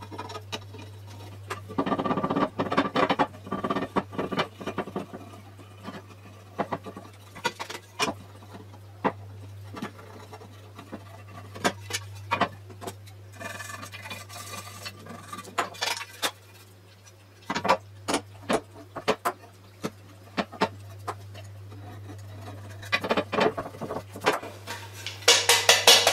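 A small screwdriver scraping old gasket material off an aluminium camshaft oil seal retainer, in irregular scratchy strokes with sharp clicks of the tip on the metal. The busiest scraping comes about two seconds in and again near the end.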